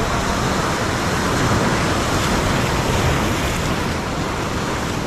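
Sea surf breaking and washing onto the shore: a steady, loud rush of water.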